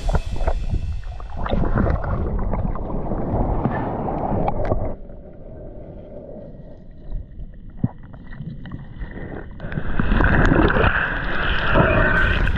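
Muffled underwater sound of water churning and bubbling around a submerged camera. It drops quieter a few seconds in and swells louder again near the end.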